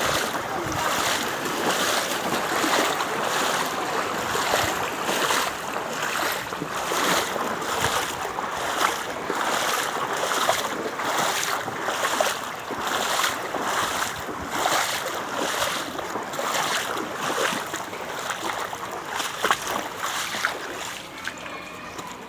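Heavy rain falling: a dense, steady hiss that eases a little near the end.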